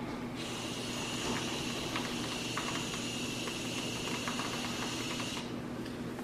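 Whipped cream dispenser (cream siphon) hissing as it sprays cream. The hiss starts about half a second in, runs steadily for about five seconds and cuts off near the end.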